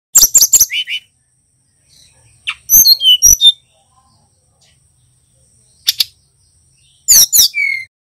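Sikatan rimba dada coklat (jungle flycatcher), a young male learning its song, calling in four quick bursts of short, high, sweeping chirps. The first and last bursts each end in a lower held whistle.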